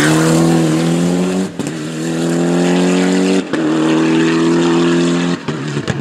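Rally car engine held at high revs under full throttle. Its note rises slightly, and it is cut off sharply three times, about every two seconds.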